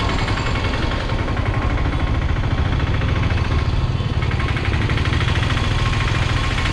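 Steady vehicle engine and road rumble heard from a moving vehicle, even and unbroken.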